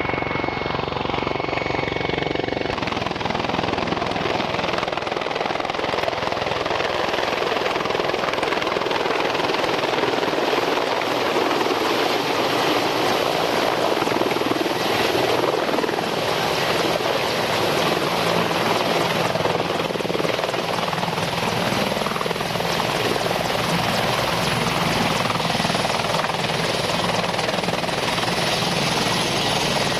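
Mil Mi-24 Hind helicopter's main rotor and twin turboshaft engines running, loud and steady. For the first couple of seconds there is a rapid rhythmic chop from the rotor, then a dense, even rush of rotor and turbine noise.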